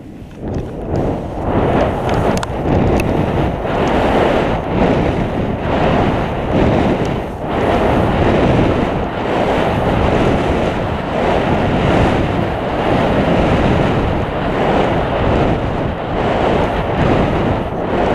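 Wind rushing over the microphone of a camera worn by a downhill skier, mixed with skis hissing and scraping over snow, swelling and easing with the descent; it builds up in the first second or two as the skier gets moving.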